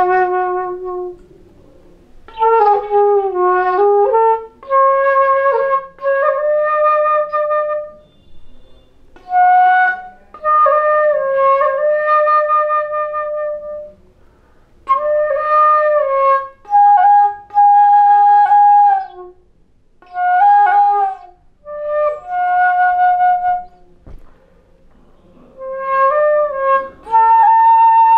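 Solo transverse flute playing a slow melody in short phrases of held notes, some sliding or bending in pitch, with brief pauses for breath between phrases.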